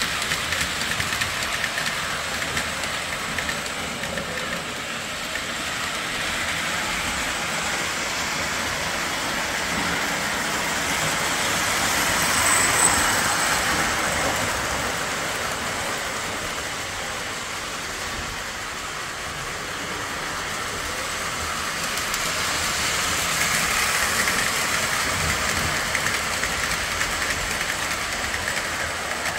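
Lionel O-gauge model freight train rolling on three-rail track: a steady rumble and clatter of wheels and motor. It swells louder twice as the train passes close.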